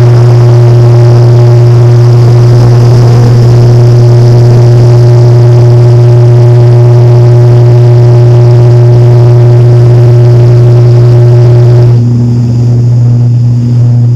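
Turboprop airliner's engines and propellers droning loudly in the cabin on the runway: a strong low hum with a steady higher tone above it. About twelve seconds in, the note changes and the higher tone gives way to a lower one.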